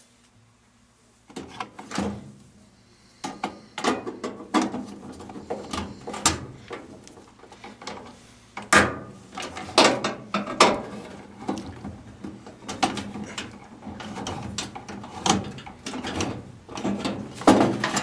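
Irregular metal clicks, clinks and scrapes of the burner mounting brackets of a Rheem RGDA gas furnace being worked loose by hand inside its sheet-metal burner compartment, starting about a second in.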